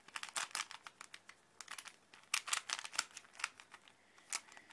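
3x3 Rubik's cube being twisted fast, its plastic layers clicking and rattling in quick irregular runs with brief pauses between them.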